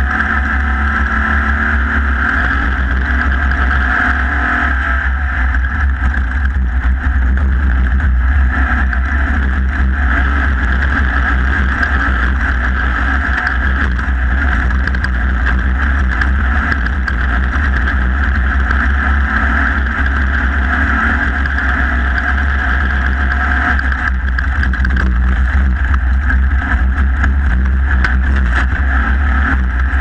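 Off-road race car driving at speed over dirt, its engine giving a steady drone under a heavy rumble of wind and chassis vibration on the car-mounted camera's microphone.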